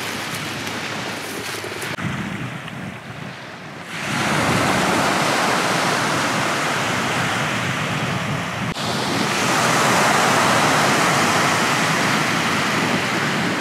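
Steady rushing of wind and sea water aboard a boat at sea, growing louder about four seconds in.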